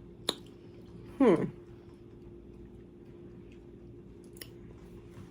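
A sharp click, then about a second in a short, loud burp that falls steeply in pitch. A faint steady hum runs underneath.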